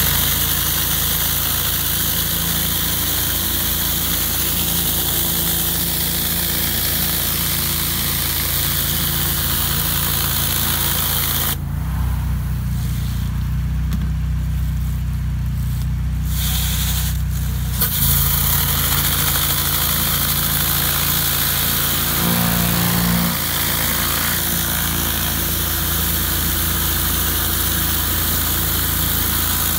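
A pressure washer's engine running steadily under the hiss of high-pressure water jets spinning beneath a Whisper Wash Classic 20-inch surface cleaner on concrete. About twelve seconds in, the spray cuts off for some six seconds, leaving only the engine's hum, then starts again.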